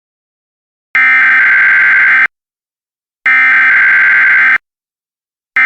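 Emergency Alert System SAME header: three identical bursts of harsh, buzzy digital data tones, each about a second and a half long with about a second of silence between them. These are the coded header bursts that open a new emergency alert.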